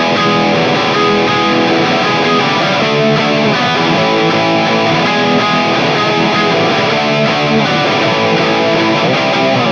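Gibson SG Standard '61 electric guitar with humbucker pickups, played through a MESA/Boogie Mark VII combo amp with a distorted tone: a continuous run of picked riffs and chords.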